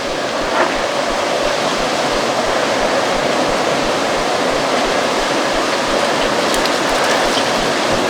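Strong autumn wind blowing in a steady, dense rush, with dry leaves rustling and skittering over the ground.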